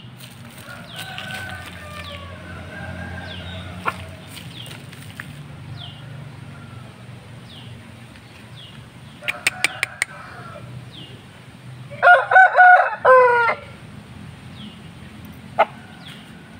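A rooster crows once, loudly, for about a second and a half, its call breaking into several pulled-out notes near the end of the stretch. Fainter crowing is heard in the first few seconds.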